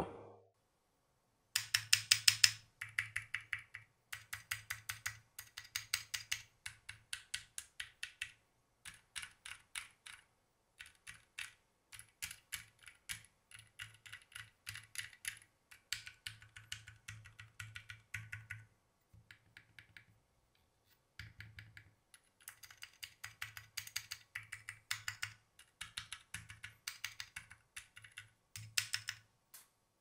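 Keystrokes on a Keychron Q0 Plus number pad fitted with Kailh Deep Sea switches, typed in quick runs with a brief lull about two-thirds through. The switches are clacky even though they are supposed to be silent switches.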